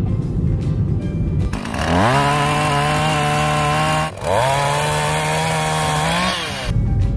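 Background music, then about 1.6 s in a two-stroke chainsaw revs up and runs at high, steady speed. It cuts out for a moment near the middle, revs up again, and stops shortly before the end as the music returns.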